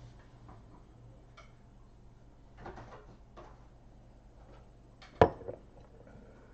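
A low steady hum with a few faint clicks, and one sharp knock about five seconds in.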